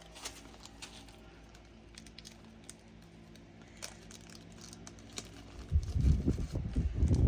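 Plastic packets crinkling with scattered light clicks as small craft items are handled, then about a second and a half of loud knocking and clattering on the tabletop near the end.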